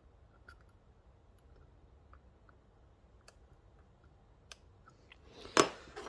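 Faint, scattered clicks of a steel dimple pick working the pins and warding inside a Mul-T-Lock Classic pin-in-pin lock cylinder under tension. Near the end comes a louder, brief handling noise as the pick is set down and another is taken up.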